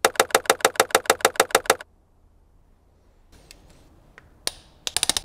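A fast, even run of sharp clicks, about ten a second, for nearly two seconds. After a quiet stretch and a few faint taps, a ratchet wrench clicks rapidly near the end as a new spark plug is threaded into the BMW M70 V12's cylinder head.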